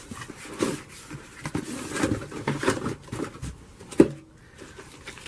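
Cardboard box and packaging being opened and handled: irregular rustling and scraping, with one sharp knock about four seconds in.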